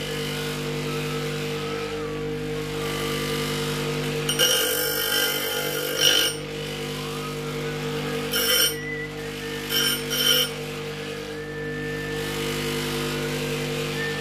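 Bench grinder motor running steadily, with a steel piston pin pressed against the spinning wheel in three short grinding passes, each a harsh rasp; the first lasts about two seconds, the other two under a second.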